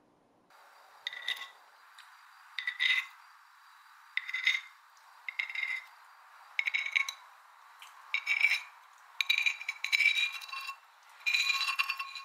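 Metal spoon clinking and scraping against a ceramic plate, about eight strokes roughly a second and a half apart, each with a short ringing tone. Near the end the strokes come longer and closer together as the spoon scrapes the emptied plate.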